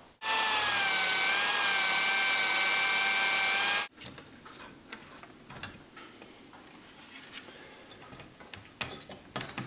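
Electric drill running at a steady high whine for about three and a half seconds, its pitch sagging slightly as it bores, then cutting off sharply; faint knocks and taps of handling wood follow. It is drilling the hole for a 12 mm wooden dowel that joins the top rail to the newel post.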